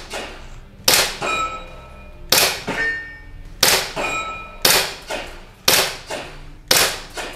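Airsoft pistol firing a string of about six single sharp shots, roughly one a second. Several shots are followed by a brief ringing tone.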